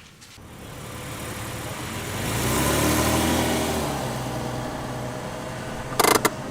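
Car engine running as the car drives off, swelling and rising in pitch, then easing off. A few sharp clicks come near the end.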